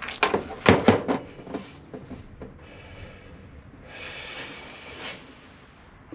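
Small metal belt-grinder parts (bearing, washers, shaft) clicking and knocking together as they are handled and fitted by hand, several sharp clicks in the first second and a half. This is followed by a brief scraping or sliding rub.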